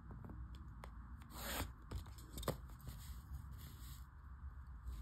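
A pencil ruling a line along a wooden ruler on notebook paper: a scratchy stroke about a second and a half in, then a sharp tap about halfway through, with a few small ticks of the ruler being handled.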